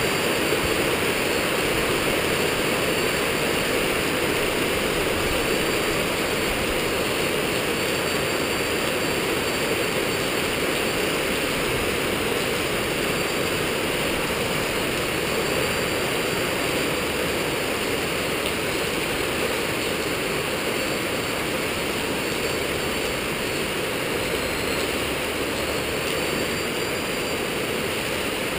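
Skyartec Wasp V3 RC helicopter in flight: a steady whoosh of the rotor blades with a faint high motor whine that rises and falls a little as the throttle changes.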